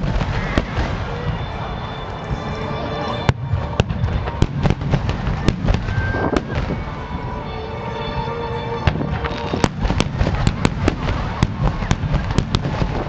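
Underwater fireworks bursting at the water's surface in quick succession: many sharp bangs and crackles, coming thickest over the last few seconds, over a steady rumble, with music in the background.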